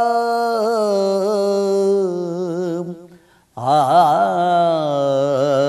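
A man solo-chanting a devotional manqabat, drawing out a long sung vowel. He breaks off for a breath about three seconds in, then resumes with wavering ornaments on the note.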